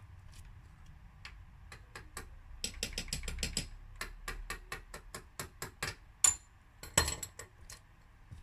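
A series of sharp mechanical clicks: a quick run of about ten a second around three seconds in, then slower irregular clicks, with two louder clicks near the end.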